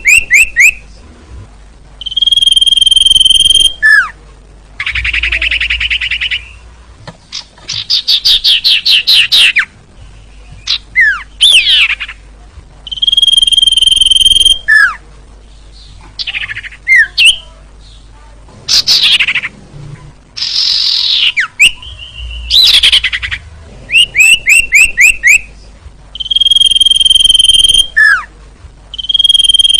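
Lure recording of sirtu birdsong: loud, held whistled notes alternating with fast rattling trills and quick down-slurred notes, the phrases repeating in cycles with short gaps. A faint low hum runs underneath.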